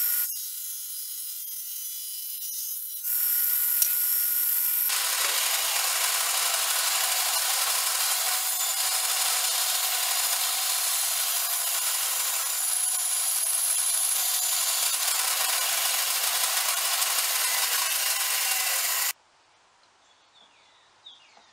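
Power saw running with a steady motor whine, then from about five seconds a bandsaw cutting through wood: a loud, even hiss of the blade in the cut. The sawing cuts off suddenly about two seconds before the end, leaving only faint room sound.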